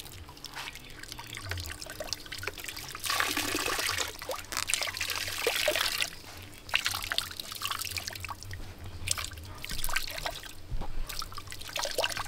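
Coconut milk pouring in a thin stream into a steaming pot of pork, splashing into the pot; the pour runs loudest for a few seconds near the middle, then comes in smaller splashes.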